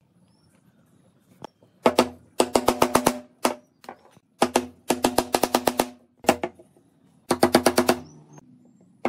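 Wooden mallet tapping thin wooden slats into glued square holes in a wooden rail. The taps come in quick runs of about ten a second, with a few single knocks between, each with a hollow wooden ring.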